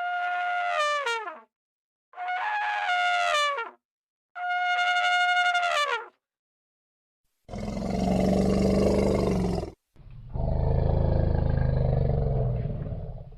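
Elephant trumpeting three times, each call a brassy held note of about a second and a half that drops in pitch at the end. Two longer, rough, low roars follow.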